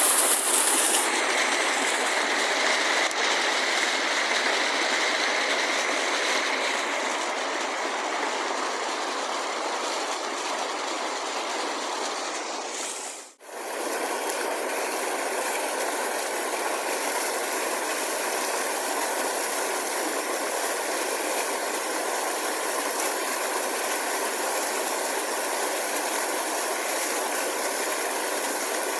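River water rushing steadily over rocks, an even hiss with no pitch. It drops out for a moment about halfway through, then carries on as before.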